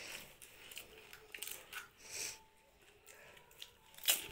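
Small crackles and taps of crisp fuchka (pani puri) shells being cracked open with fingers and filled, with a sharp tap near the end.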